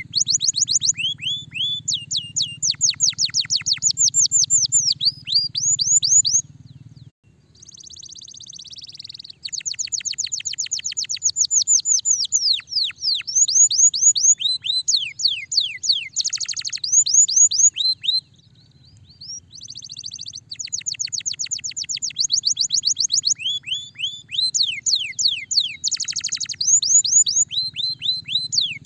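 Domestic canary singing: fast runs of repeated downward-sweeping whistled notes, broken by a softer buzzy trill about a quarter of the way in and a brief lull around two-thirds of the way through.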